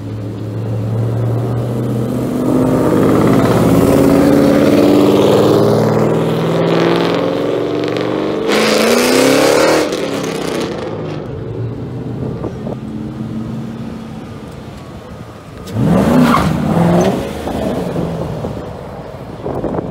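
Ford Mustangs accelerating past one after another, their exhaust notes rising in pitch as they pull away. One car passes loudly about sixteen seconds in.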